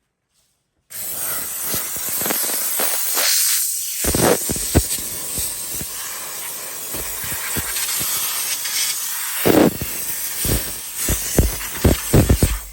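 Dupray steam cleaner blasting a jet of steam, a loud hiss that starts suddenly about a second in, with frequent pops and knocks as the jet sputters and works against the coffee maker's surfaces, then cuts off at the end.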